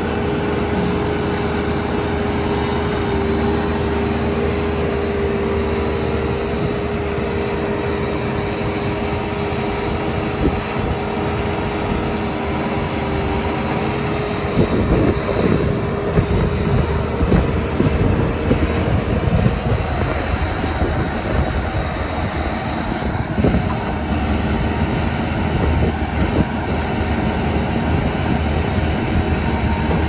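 JCB 3CX backhoe loader's diesel engine running under hydraulic load while the backhoe digs, with a steady whine through the first half. From about halfway on, irregular knocks and clunks come from the arm and bucket working.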